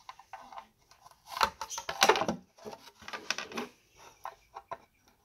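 A small fingerboard ramp being picked up, tilted and set down on a desk: a run of light knocks, taps and scrapes, busiest around the middle.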